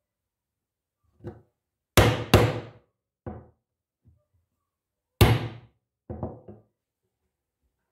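Ball-peen hammer striking a spring-steel hand punch to drive holes through chainmail rings on a hardwood block. Two sharp strikes come close together about two seconds in and a third, the loudest, about five seconds in, with quieter knocks between.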